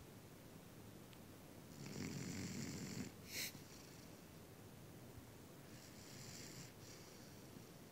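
Faint snoring in two breaths: a longer, louder snore about two seconds in, then a short sharp noise just after it, and a weaker snore near six seconds.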